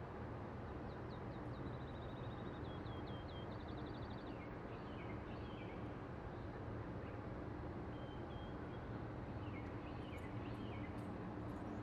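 Small birds chirping and trilling, with short downward-sweeping notes and a quick trill a few seconds in, over a faint, steady low background rumble.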